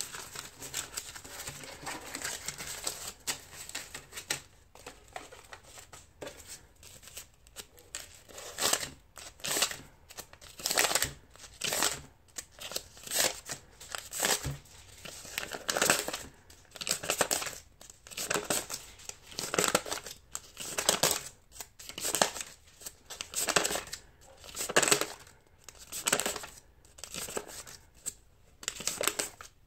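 US dollar bills being counted by hand: a loose rustle of paper money being handled, then, from about a quarter of the way in, a steady rhythm of crisp paper rustles as each bill is peeled off the stack, roughly three every two seconds.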